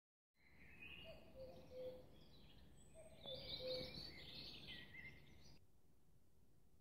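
Faint bird-like chirping and warbling that stops abruptly about five and a half seconds in, leaving near silence.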